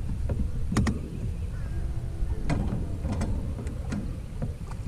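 A few sharp clicks and knocks from fishing rods being handled in a boat's bow rod holders, over a low steady rumble.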